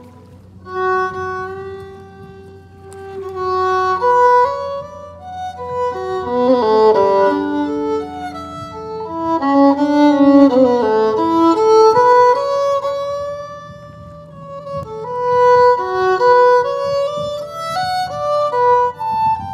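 Solo violin playing a slow melody of long held notes, with slides in pitch between some of them.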